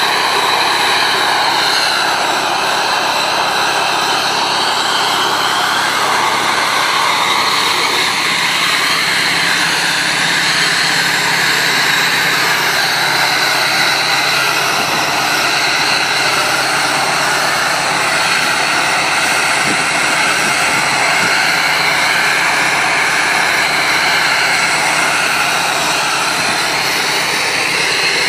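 Marshall 702 tractor's diesel engine running steadily while it drives the bale wrapper. Its pitch drifts down and back up a couple of times.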